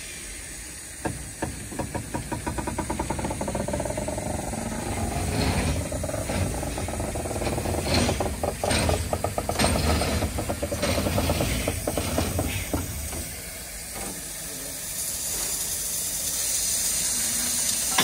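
Narrow-gauge steam locomotive Lyn standing at the platform with a steady hiss of steam, over a fast, regular run of knocks from the engine that starts about a second in, grows denser and louder in the middle and dies away well before the end.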